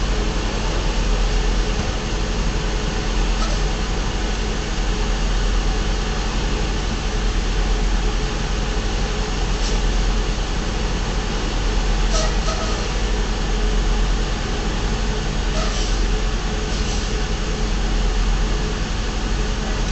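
Steady low drone of a semi truck's idling diesel engine as heard inside the cab, with a few faint clicks scattered through it.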